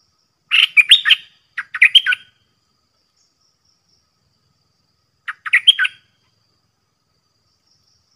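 Stripe-throated bulbul singing: three short phrases of quick, rapidly rising and falling notes, two close together near the start and one more about five seconds in.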